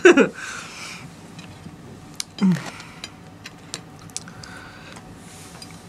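Small, sharp clicks and taps of cutlery and china plates as breakfast is handled, scattered irregularly, with one short voice sound about two and a half seconds in.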